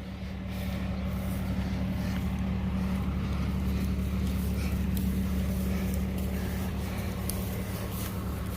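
Engine idling steadily: a low, even hum.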